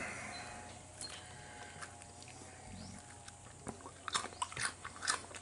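A cat chewing a piece of fried potato: a run of small crunches and clicks starting a little over halfway through.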